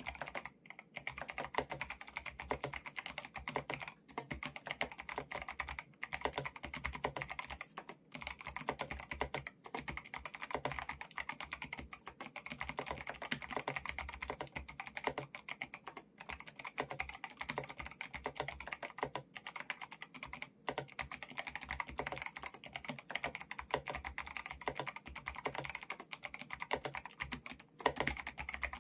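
Typing on an 8BitDo mechanical keyboard with Kailh Box White V2 clicky switches: a fast, continuous run of keystroke clicks, broken by short pauses every few seconds.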